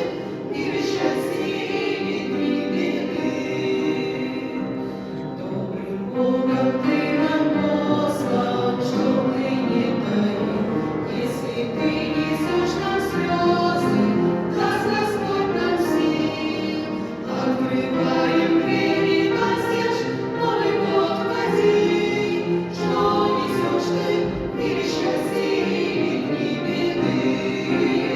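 Women's vocal ensemble singing a Christian New Year song in Russian, several voices together in sustained phrases.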